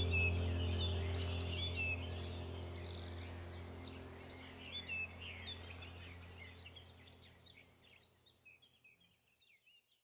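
Small birds chirping and calling over a low steady hum, the whole sound fading out steadily until it is gone at the end.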